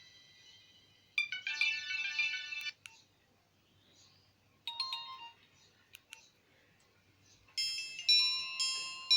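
Nokia 1661-2 mobile phone's speaker playing short snippets of different ringtone melodies, each cut off abruptly. A quick run of notes comes about a second in, a brief two-note phrase near the middle, and another melody starts near the end, with a few faint clicks in the gaps.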